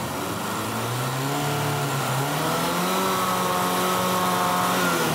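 Lada's four-cylinder gasoline engine, fuelled through a Toyota 2C-T diesel high-pressure injection pump, revving up as more fuel is given. It climbs over about two seconds, holds at high revs of about six thousand rpm, and eases slightly near the end.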